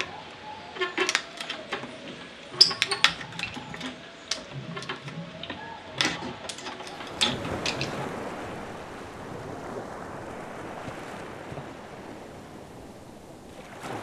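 A run of sharp clicks and knocks from hand work on wood. About halfway through they give way to the steady wash of surf breaking on a beach.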